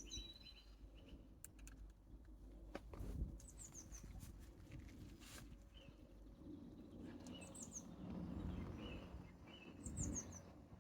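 Small birds calling in short groups of quick falling chirps, about every three seconds, over a low rumble with a few faint clicks.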